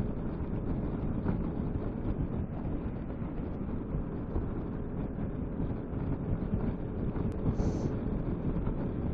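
Steady wind rush over the camera microphone with the low running noise of a Piaggio MP3 500 scooter on the move.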